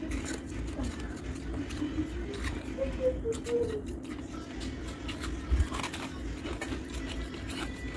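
Small crackles, scrapes and soft crunches from a chunk of refrozen freezer frost being picked up and handled, over a steady low background hum.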